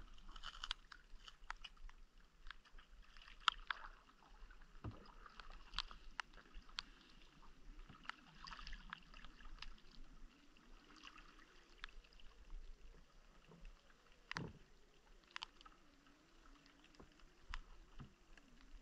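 Canoe being paddled on calm water: faint lapping and dripping from the paddle and hull, with many small ticks and one sharper tap about three-quarters of the way through.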